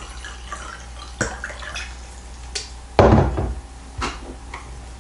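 Water being poured into a jar, with small clinks, then a loud knock about three seconds in as a container is set down on the table, and a lighter knock a second later.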